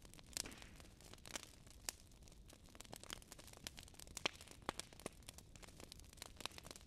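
Wood fire crackling: irregular sharp pops and snaps, a few louder than the rest, over a faint steady hiss.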